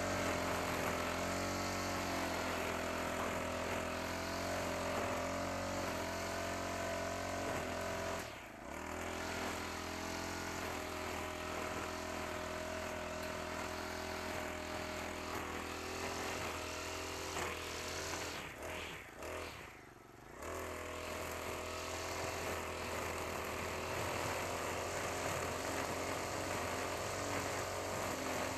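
Honda GX35 four-stroke brush cutter engine running at cutting speed while trimming grass. The engine eases off briefly about a third of the way in, and again for a couple of seconds around two-thirds of the way, then picks back up.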